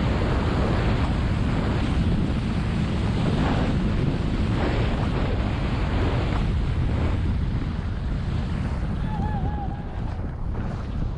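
Wind rushing over a skier's camera microphone at speed, with the skis hissing on the snow. It eases a little near the end as the skier slows.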